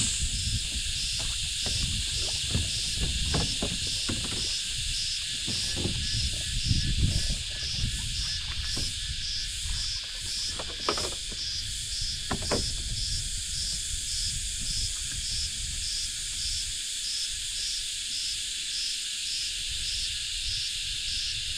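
Steady, shrill insect chorus pulsing about twice a second. In the first half, low rumbling and a few sharp knocks from the kayak and tackle being handled.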